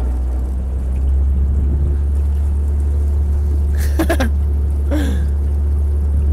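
A steady low motor hum, with two short falling calls about four and five seconds in.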